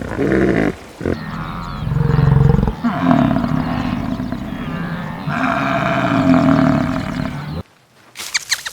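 A large animal giving a run of deep, rough growling calls, one after another, which cut off abruptly near the end.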